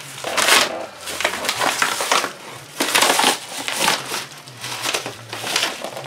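A knife slits open a paper mailer envelope: the paper tears and crinkles in a series of irregular scraping strokes, then rustles as the envelope is handled.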